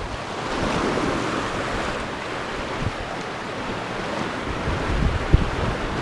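Sea surf washing over rocks, with wind buffeting the microphone. The surge swells about a second in, and there is a brief knock near the end.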